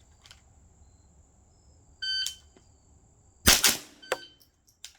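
Shot timer start beep, then about a second and a half later a quick pair of rifle shots, followed shortly by the timer's second beep marking the 2-second par time.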